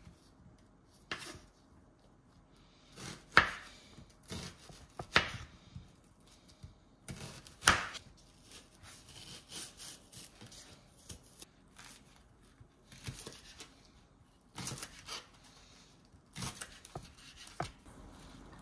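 Irregular knocks and scrapes of kitchen work with utensils, a few sharp loud ones among softer clatter and short quiet gaps.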